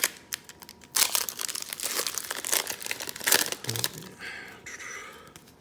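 Foil wrapper of a Pokémon card booster pack crinkling and tearing as it is ripped open, starting about a second in and lasting around two and a half seconds.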